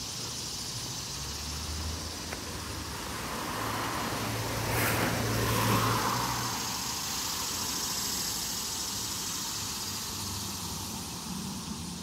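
Annual cicadas buzzing in a steady, high, continuous chorus, with a car passing on the street, loudest about five to six seconds in.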